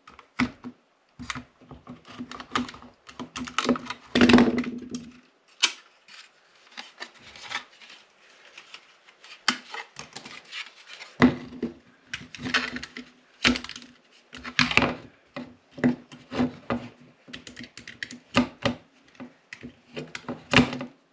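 Hobby knife cutting and working the soft plastic of a UTV's grille: an irregular run of clicks, taps and short scrapes, with a longer, louder scrape about four seconds in.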